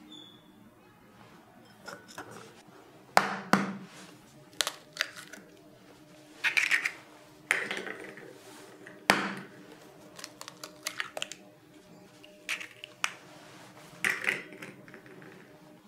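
Two eggs cracked one after the other on the rim of a mixing bowl and opened over flour: a series of sharp taps and shell cracks, with softer knocks and handling in between.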